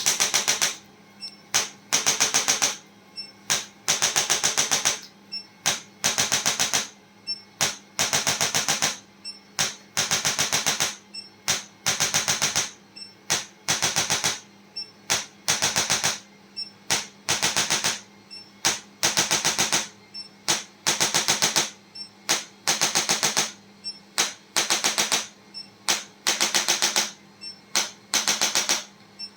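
Rapid mechanical tapping from a handheld percussion device, in bursts of about a second that come roughly every two seconds, with a steady low hum underneath.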